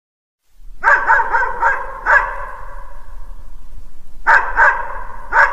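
Dogs barking in play: a quick run of about five barks about a second in, a single bark after it, then three more barks near the end.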